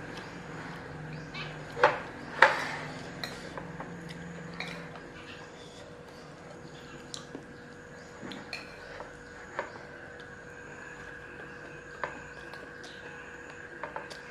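Metal spoon clinking and scraping against plates while eating, with two sharp clinks about two seconds in, then scattered lighter taps.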